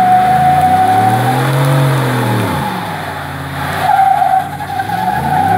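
2017 Ford F-150's 5.0-litre V8 doing a burnout: the rear tyres spin with a steady high squeal. The squeal breaks off about a second in while the engine revs rise and fall, then returns about four seconds in.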